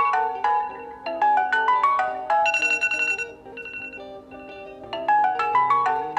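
A tablet playing a melodic ringtone: quick runs of bright notes, then a held chord and a softer stretch, with the tune starting over near the end.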